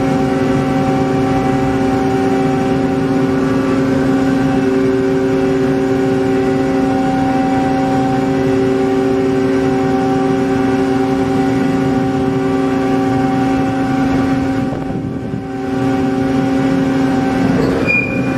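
The ferry MV Salish Orca's engines droning steadily as it pulls away from the berth: several constant hum tones over a rushing noise. The sound dips briefly about three-quarters of the way in, and a short high beep sounds near the end.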